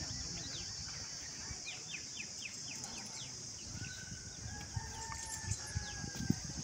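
Outdoor ambience: many quick falling bird chirps over a steady high hiss, with a longer held bird call about four seconds in. Soft low thumps come near the end.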